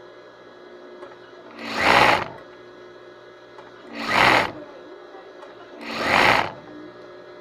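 Electric sewing machine run in three short bursts, each under a second long and about two seconds apart.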